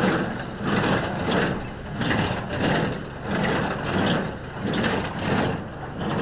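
A John Deere 5055E tractor runs a Massey Ferguson 1837 small square baler. The machinery gives a steady mechanical drone that pulses about three times every two seconds, in time with the baler working.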